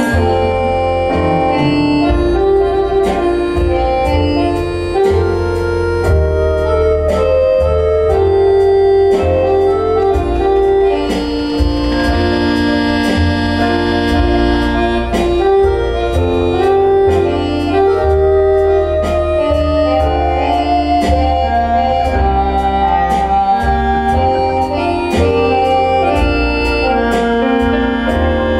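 Instrumental music with held, organ-like keyboard chords and a steady light tapping beat, no voice, played back over large hi-fi floor-standing loudspeakers.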